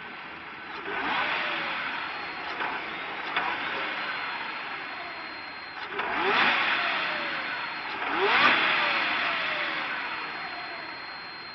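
Jaguar XJR6's supercharged 4.0-litre straight-six idling and revved three times, about 1, 6 and 8 seconds in. Each time the pitch rises, then falls back to idle.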